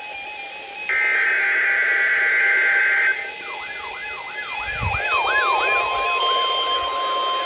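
NOAA Weather Radio weekly test alert. The SAME digital header's two-tone data screech briefly drops out at the start, then runs again from about one to three seconds in. After it, a siren-like tone falls in pitch over and over, about three times a second, and about six seconds in the steady 1050 Hz warning alarm tone comes in under it.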